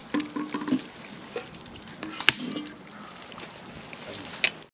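Chilli con carne simmering in a cast-iron Dutch oven over wood embers: faint liquid bubbling, with a couple of sharp clicks.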